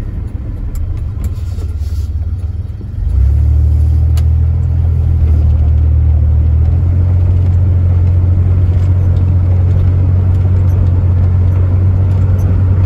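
Cab sound of a 1992 GMC Sonoma pickup under way: its 4.3-litre V6 and the road make a steady low hum. About three seconds in, a much louder low drone sets in and holds.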